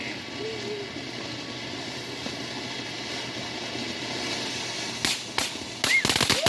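Consumer firework fountain spraying with a steady hiss, then two sharp pops about five seconds in and a rapid run of crackling pops starting near the end.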